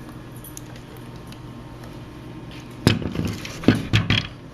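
A WASR-10 AK-47 in a bullpup stock being turned over and handled: after about three seconds of quiet, a quick cluster of sharp knocks and clatter as the rifle is moved against a surface.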